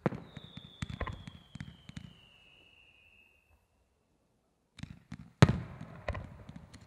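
Aerial fireworks going off: a run of sharp launch and burst bangs, with a whistle that falls slowly in pitch for about three seconds. After a short pause a second cluster of bangs comes, the loudest about five and a half seconds in.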